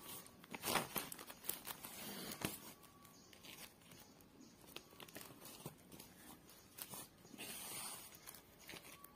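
Yarn and needle being drawn through a woven plastic sack in hand embroidery: faint scratchy rasps and crinkly rustles of the sack, with a longer rasp near the end as a stitch is pulled through.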